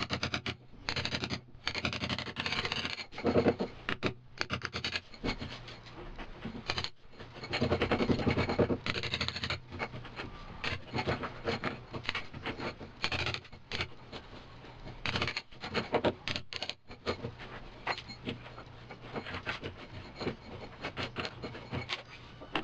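Mallet striking a cold chisel, chipping a slot into a wall in a run of irregular blows, with grating and scraping between the strikes.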